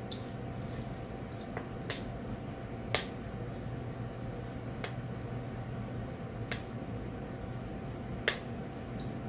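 Chopsticks tossing noodle salad in a stainless steel bowl, clicking against the metal now and then: about six sharp clicks, the loudest about three seconds in and near the end, over a steady low hum.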